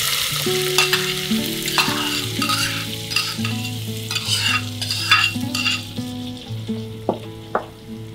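Chopped onion dropped into hot oil with cumin seeds in a stainless steel pressure cooker, sizzling at once, with a metal ladle scraping and knocking against the bowl and pot a few times. The sizzle thins out over the last couple of seconds.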